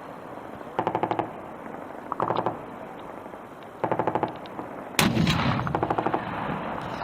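Machine gun firing four short bursts of rapid shots, a second or so apart, with a single louder bang just before the last burst.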